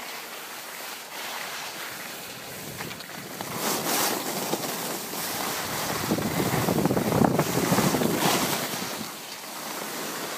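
Wind buffeting the microphone and skis hissing and scraping over packed snow during downhill skiing, swelling louder in the middle and easing near the end.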